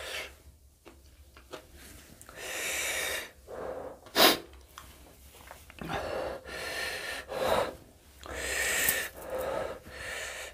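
A man breathing hard in and out through his open mouth, hissing breaths taken against the burn of very hot green chillies he is eating. The breaths come in a series of bursts about half a second to a second long, with one short, sharp breath about four seconds in that is the loudest.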